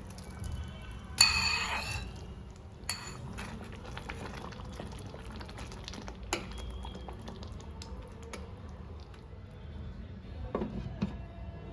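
Metal kitchen utensils knocking against cookware while cooking: a loud ringing clang about a second in, then lighter clinks and scrapes, with a couple more knocks near the end, over a low steady hum.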